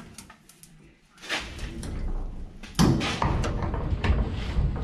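Sheet-metal access lid on a New Holland TR88 combine being opened and propped with its rod: metal clanking and rattling, the loudest knock about three seconds in.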